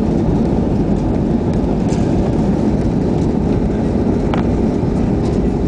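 Steady, loud rumble inside the cabin of an Airbus A320-family airliner during its landing rollout: engine and runway noise as it decelerates with its ground spoilers raised.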